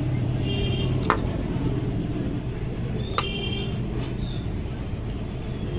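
Steady low background hum, like traffic, with two sharp clicks, one about a second in and another about three seconds in, and faint short high chirps scattered through.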